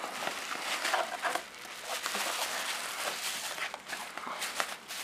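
Plastic bubble wrap crinkling and rustling as hands pull a wrapped package out of a cardboard box and turn it over, with many short crackles throughout.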